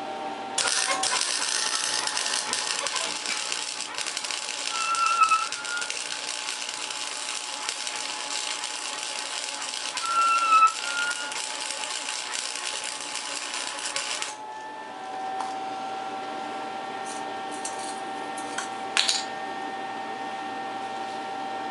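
Wire-feed welder arc crackling steadily as a bead is laid on square steel tubing, stopping after about fourteen seconds. A steady hum remains, with one brief crackle near the end.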